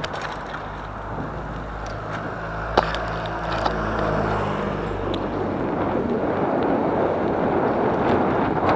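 Wind rushing over the microphone of a camera on a moving bicycle, growing louder in the second half as the ride speeds up. A motor vehicle's engine hums low under it for the first few seconds, and a single sharp knock comes about three seconds in.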